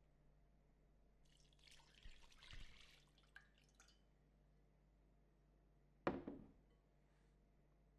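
Sauce poured from a bowl into a cast iron skillet, splashing for about two and a half seconds, then one sharp click about six seconds in.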